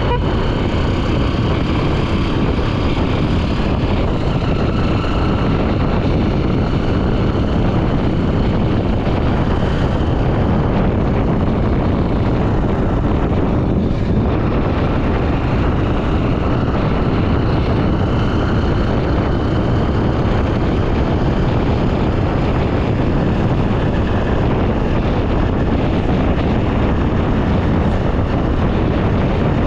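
Honda XR 250 Tornado's single-cylinder engine running steadily while riding, mixed with a dense rush of wind and road noise.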